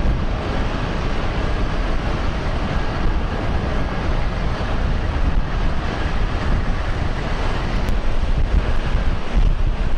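Steady low rumble of a vehicle, with wind noise on the microphone.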